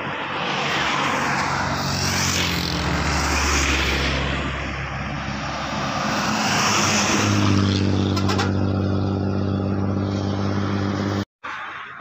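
Coach bus passing close on a highway: diesel engine hum and tyre noise, the engine note growing louder about seven seconds in as the bus comes near, with other passing traffic before it.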